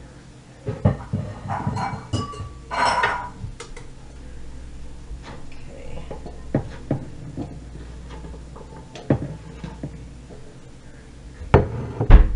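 Kitchen clatter: scattered knocks and clinks of dishes and utensils being handled on a counter, with two louder knocks near the end.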